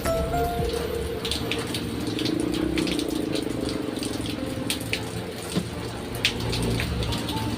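Steady rush of water with many scattered sharp ticks, like drops striking a hard surface, and a few faint musical notes near the start.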